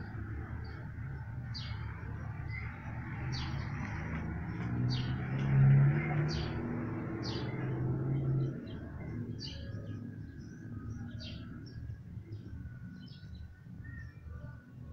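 Small birds chirping, with short high chirps about once or twice a second. Under them runs a low, steady hum that swells around the middle and cuts off about two-thirds of the way through.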